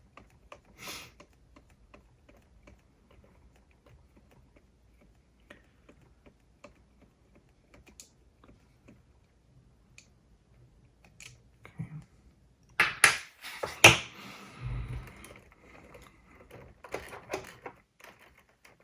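Small clicks and taps of hand tools against the metal parts of a cassette deck's tape transport during disassembly, with a burst of louder clattering about 13 seconds in and a few more clicks after it.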